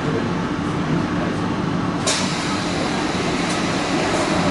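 Taipei Metro C301 train running, a steady rumble and hum of motors and wheels on rail, with a sharp click about two seconds in.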